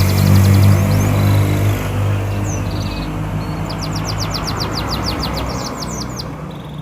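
Domestic canary singing in rapid trills of short, high sweeping notes, with a longer, faster run of about ten notes a second from about three and a half to five and a half seconds in. Under it runs a steady low hum, loudest in the first two seconds, that fades out near the end.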